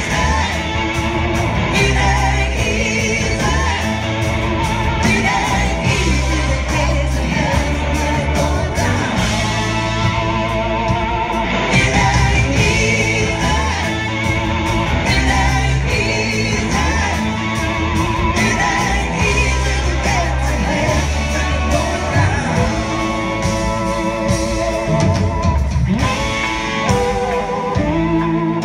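Live rock band playing with singing, lead and backing vocals over electric guitars, keyboards and drums.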